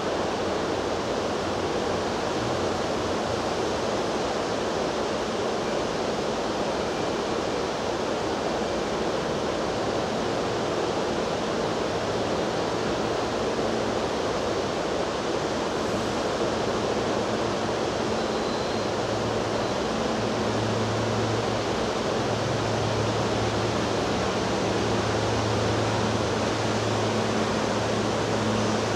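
Fast, shallow river water rushing over a rocky riffle: a steady, even rushing noise. A faint low hum comes in during the second half.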